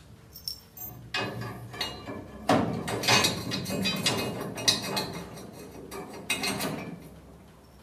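A hand wrench turning a bolt through a metal bracket: irregular bursts of metallic clicking and clinking, busiest a few seconds in and tapering off near the end.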